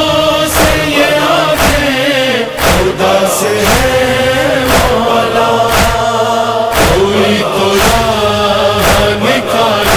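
An Urdu noha: male voices chanting a sustained lament in chorus over rhythmic chest-beating (matam), one heavy beat about every second.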